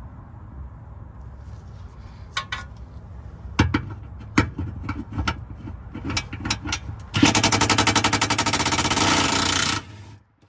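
Cordless impact wrench hammering rapidly for about two and a half seconds, then stopping abruptly, as it loosens a 14 mm bolt under the car. Before it come a few scattered metallic clicks and knocks.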